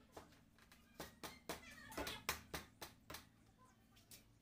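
Wooden bed-frame parts knocking together as the footboard is worked onto the side rails: a run of short, sharp wooden knocks, bunched in the middle.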